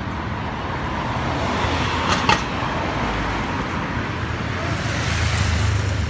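Street traffic: the steady noise of road vehicles going by, with a low engine rumble building over the last couple of seconds and one short, sharp clack about two seconds in.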